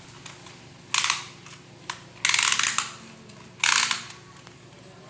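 Beyblade launcher pulled over and over without launching: about four short ratcheting whirrs roughly a second and a half apart, each dying away quickly.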